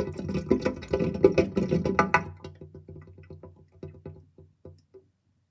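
Kitchen sink drain gurgling as the last of the water runs out: a quick string of glugs for about two seconds, then slowing to a few single gurgles that stop about five seconds in.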